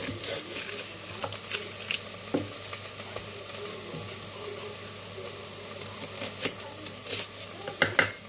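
Food frying in a pan with a steady sizzle, broken by irregular sharp taps of a kitchen knife on a wooden chopping board as an onion is cut, a cluster of them near the end.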